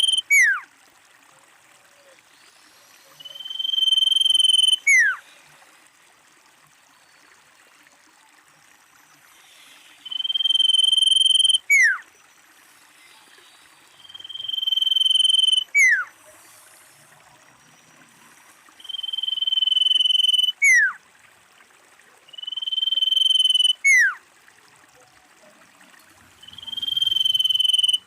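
Common iora calling: a long, swelling whistled note ending in a quick falling note. The call repeats about every four seconds, seven times in all.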